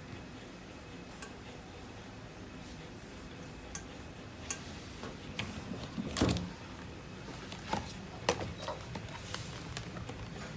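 Scattered mechanical clicks and knocks from an Olivetti Lettera 32 portable typewriter being handled. The clicks come more often from about four seconds in, with one louder, duller knock about six seconds in.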